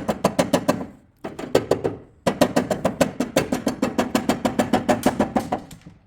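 Hammer rapidly striking a stuck metal part to knock it loose, about seven blows a second with a short ring after each, pausing briefly twice.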